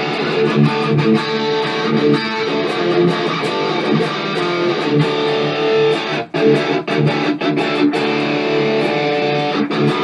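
Electric guitar playing a strummed chord riff. It drops out briefly about six seconds in and cuts off sharply at the end.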